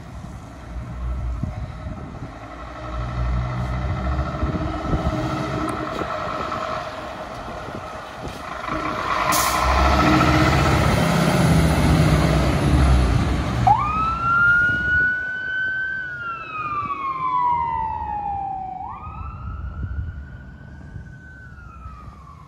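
Fire engine's diesel engine running as it pulls out and drives past, loudest a little over halfway through. About 14 s in its siren switches on in a slow wail, each sweep rising quickly and falling gradually over several seconds, as it heads away on an emergency turnout.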